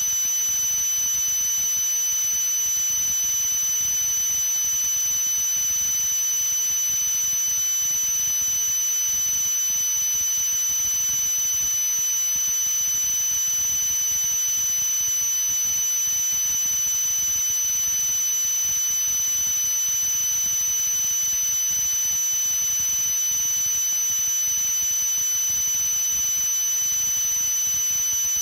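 A steady high-pitched electronic tone with higher overtones over an even hiss, unchanging throughout.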